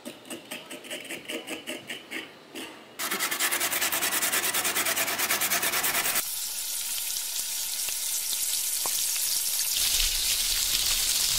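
Kitchen preparation sounds: quiet rhythmic scraping strokes, then a louder, fast, even rasping of food being grated on a metal grater. Then a steady sizzle of food frying in a pot, which slowly grows louder.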